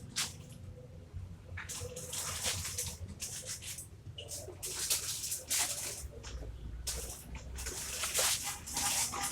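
A man snoring in his sleep: three long, noisy breaths about three seconds apart, over a low steady hum.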